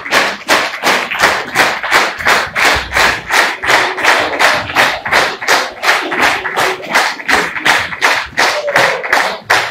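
Theatre audience clapping in unison, a steady rhythmic beat of about three and a half claps a second.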